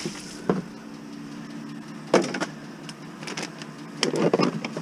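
Bottles and containers clattering as they are handled in a curbside recycling box: a knock about half a second in, a sharper one just after two seconds, and a longer rattle near the end, over a steady low hum.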